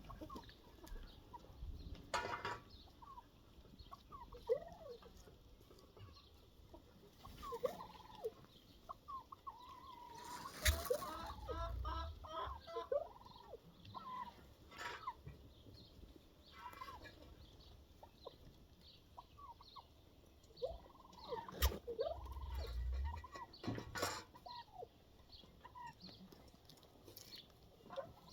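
Farmyard poultry calling: scattered short clucks and chirps, with a rapid run of calls about a third of the way in and another about three quarters in. A few sharp knocks sound among the calls.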